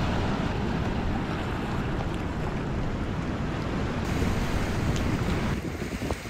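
Sea surf washing against a rocky shore, with wind buffeting the microphone in a continuous rumbling rush; it thins a little near the end.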